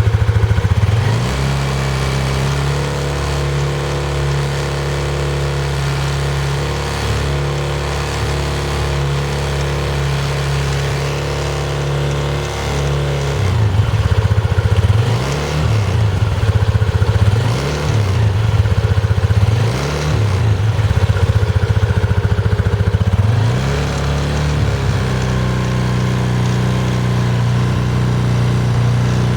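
PGO Tigra scooter engine idling on its centre stand. About halfway through, the throttle is blipped about five times, each one a rise and fall in engine speed that spins the rear wheel. Then it settles back to idle. The rear wheel makes an abnormal noise when driven by the engine, which the uploader puts down to the rear brake caliper; the wheel is silent when turned by hand.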